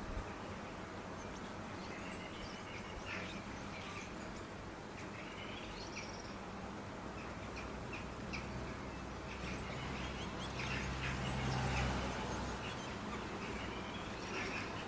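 Great tit giving short scattered chirps and whistled call notes. A low rumble swells up underneath from about eight seconds in and fades again by about thirteen seconds.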